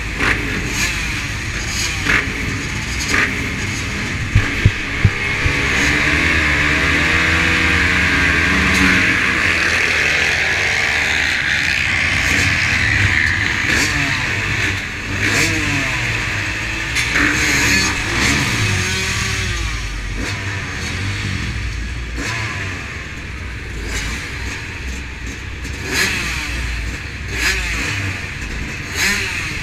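Several motocross dirt bikes idling and revving on the starting line behind the gate, engine pitch rising and falling as riders blip their throttles. A few short thumps sound about four to five seconds in.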